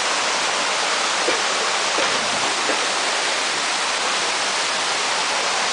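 Waterfall rushing steadily: a dense, even hiss of falling water.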